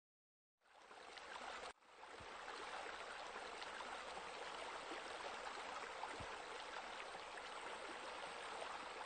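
Water pouring and splashing steadily, the sound of wall spouts spilling into a swimming pool. It starts about half a second in and drops out for an instant near two seconds in.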